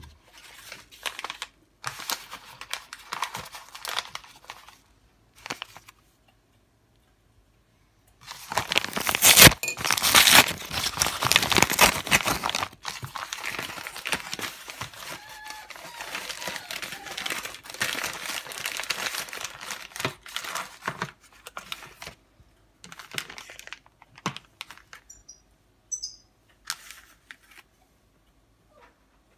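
A Sealed Air padded paper mailer being torn open and crumpled by hand, in bouts of crinkling and tearing with short quiet gaps. The loudest, longest stretch of ripping and crumpling comes about a third of the way through.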